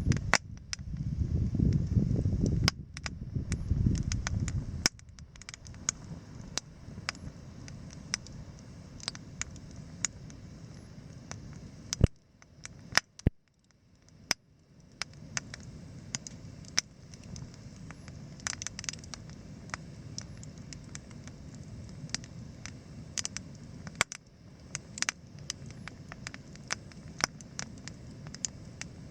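Wood campfire crackling and popping, with irregular sharp snaps and two louder pops about twelve and thirteen seconds in. A low rumble is loud for the first five seconds, then drops to a soft steady hiss beneath the crackle.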